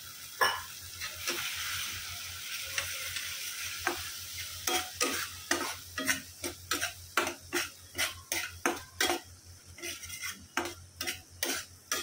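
Spice paste sizzling in oil in a kadhai just after a splash of water. About four seconds in, a metal spatula starts stirring it, scraping and knocking against the pan in quick, regular strokes. The paste is being fried until the oil separates.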